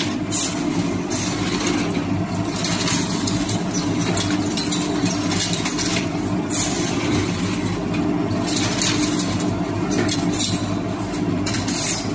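Mushroom substrate machine running steadily: a constant mechanical hum with surges of hiss every second or two.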